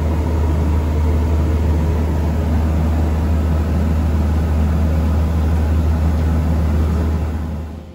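Heavy factory machinery running with a steady, loud low hum under a wash of mechanical noise, dropping away near the end.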